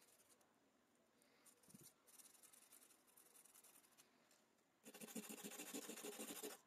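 Sandpaper rubbing on a rusted lighter part: faint light scratching at first, then just before the end a louder, rapid scraping as a small rusty metal piece is rubbed on a sheet of sandpaper to take off the rust, stopping abruptly.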